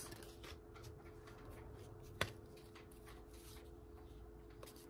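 Faint rustle of baseball cards being handled and flipped through, with one sharp click about two seconds in.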